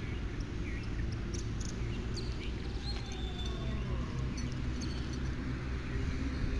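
Outdoor ambience: a steady low rumble with a few short, faint bird chirps scattered through it.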